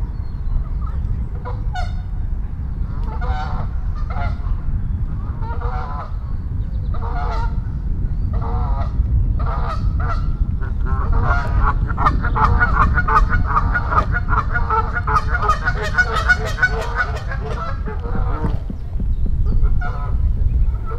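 Geese honking: single honks about a second apart at first, then many geese honking together in a dense chorus for several seconds before it thins out again, over a steady low rumble.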